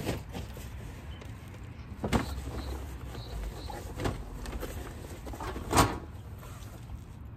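Bags and camping gear bumped and set down in a car's hatchback cargo area: four dull knocks about two seconds apart, the loudest near the end.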